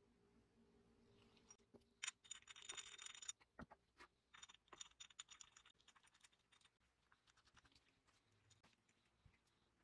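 Faint clicks and scraping of small metal parts as a threaded rod and coil spring are fitted into the polished aluminium hub of a 3M Scotch M-96 tape dispenser by hand. There is a quick run of ticks about two seconds in, and scattered clicks until about six seconds in.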